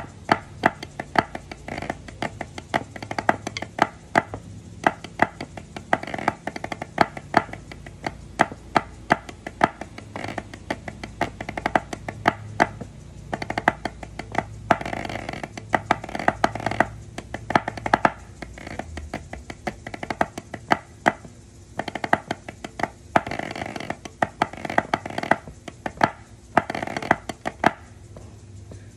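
Drumsticks played on a rubber drum practice pad in a rudimental medley: a fast, steady run of sharp taps, with stretches of tightly packed rolls.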